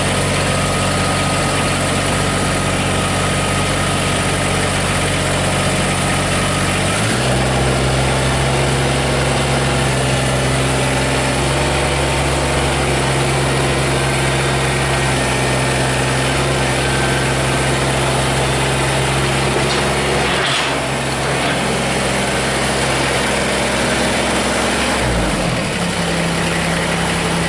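Kubota BX24 compact tractor's three-cylinder diesel engine running steadily. Its revs step up about a quarter of the way in and fall back near the end, as the tractor is backed off its dropped mower deck.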